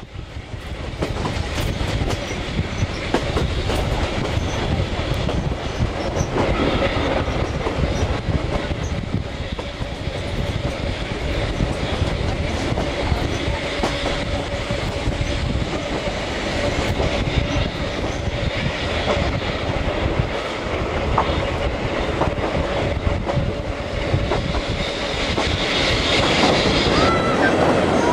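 Passenger coach of a steam-hauled train running, heard through an open window: a steady rumble of wheels on rail with clicking over the joints. A thin steady wheel squeal holds for several seconds around the middle.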